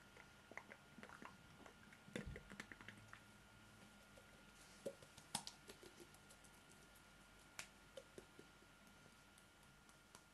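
Near silence: faint room tone with scattered small clicks and ticks, a soft low thump about two seconds in, and a cluster of sharper clicks about five seconds in.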